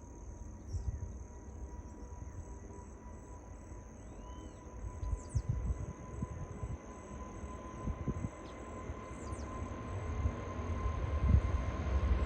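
Boeing 777 jet engines heard from a distance, a low rumble that grows steadily louder through the second half as the airliner draws near, with a faint steady high whine above it.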